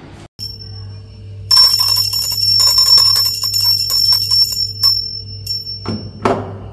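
Small brass puja hand bell rung rapidly for about three seconds, starting about a second and a half in, with clear high ringing tones over a steady low hum. A couple of knocks follow near the end.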